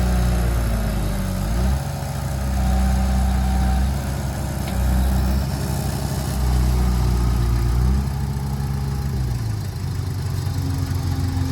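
Heavy diesel engine of earthmoving machinery running under varying load. Its low note swells and eases every couple of seconds, and the pitch shifts about two seconds in and again near the end.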